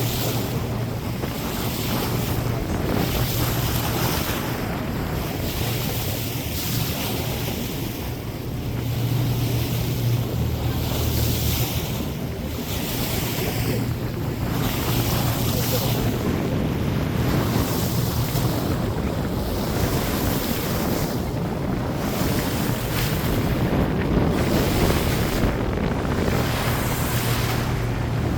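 Motorboat running on the open ocean: water rushing and splashing along the hull, with wind buffeting the microphone in surges every second or two over a steady low engine hum.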